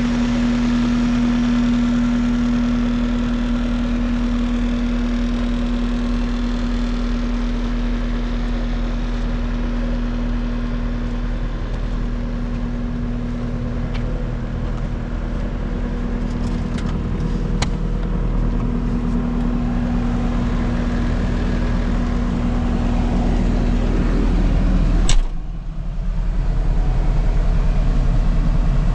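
Case SV185 skid steer's diesel engine running steadily at idle, with one sharp click near the end and a brief dip in the sound.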